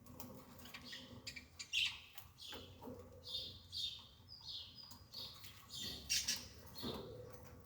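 Birds chirping in short repeated calls, with a few scattered sharp clicks among them.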